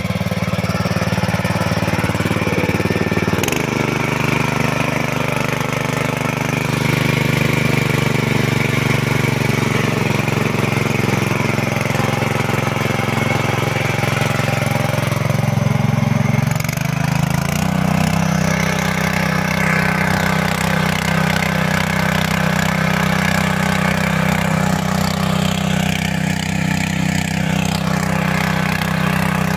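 Small petrol generator engine running steadily, its note shifting a few seconds in and again about halfway through.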